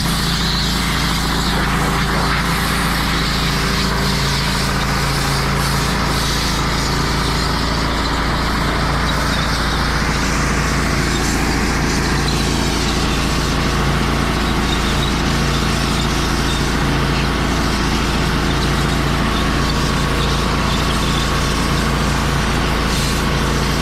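Diesel engine of harvest machinery running steadily under a constant hiss.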